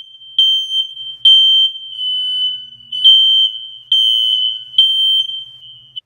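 Smoke alarm sounding while its test button is held: a loud, shrill, high-pitched beep in the three-beep evacuation pattern, three beeps about a second apart, a short gap, then three more.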